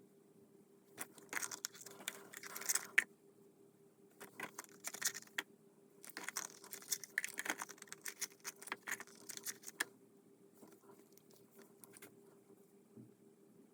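Hand tools clicking and rattling against metal engine parts in three bursts of rapid light clicks, fading to a few faint ones near the end.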